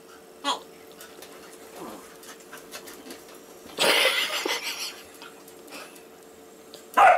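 Labradoodle and basset hound play-fighting: a loud burst of growling lasting about a second about four seconds in, and a short sharp bark near the end, with small scuffling sounds between.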